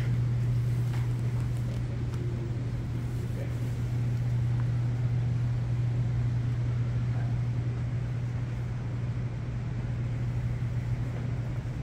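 A steady low hum that does not change, over a faint even background noise.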